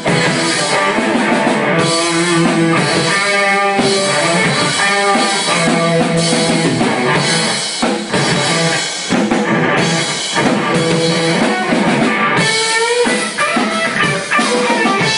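Electric guitar, a Les Paul, playing a rock lead solo of sustained notes, with string bends near the end. A drum kit keeps a steady beat under it, with cymbals ringing throughout.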